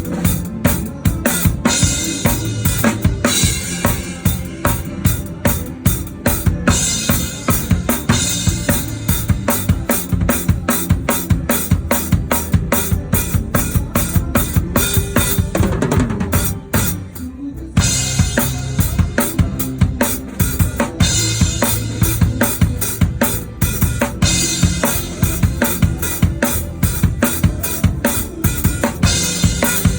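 Drum kit playing a steady kick-and-snare beat with cymbals through a worship song, heard close up from the kit, with the rest of the band underneath. About sixteen seconds in the playing drops away briefly, then the full beat comes back in.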